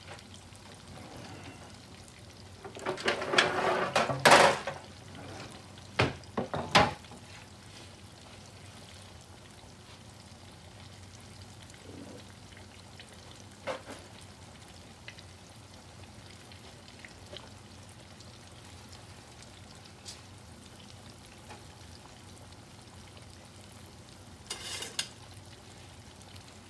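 Cornmeal-battered catfish deep-frying in hot oil in a cast-iron pot: a steady, quiet sizzle. Over it come a few loud clatters and knocks about three to seven seconds in and again near the end, as a metal baking sheet and paper towels are set out beside the stove.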